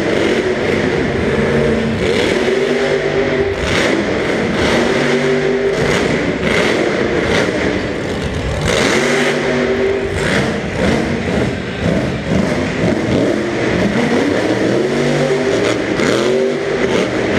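Grave Digger monster truck's supercharged V8 repeatedly revving up and falling back during a freestyle run.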